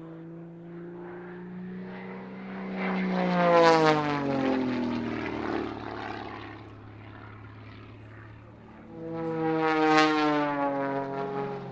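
Single-engine aerobatic monoplane's piston engine and propeller at high power, passing by twice. Each pass swells to a loud peak, and the pitch drops as the plane goes by.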